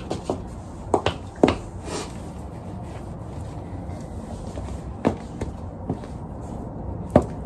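Leather cowboy boot heels striking a wooden floor as someone walks in them: several footsteps in the first two seconds, a pause of about three seconds, then a few more steps.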